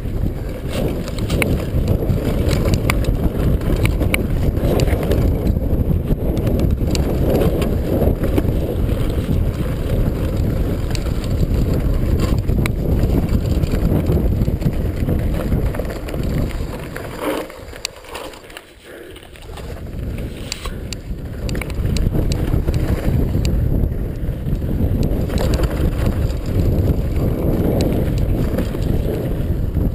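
Downhill mountain bike descending a dirt trail: wind buffeting the camera's microphone and tyres rolling over the ground, with frequent clattering knocks from the bike over bumps. The noise drops away briefly about two-thirds of the way through, then picks up again.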